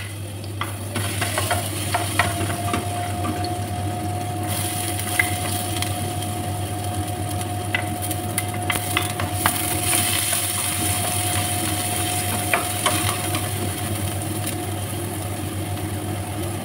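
Minced garlic and then chopped onion sizzling in a hot metal frying pan, with a wooden spoon clicking and scraping against the plate and pan as they are pushed in and stirred. A steady low hum runs underneath.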